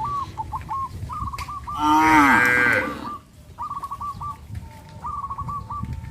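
A cow mooing once, a loud call about a second long around two seconds in. Runs of quick, high chirping notes come and go behind it.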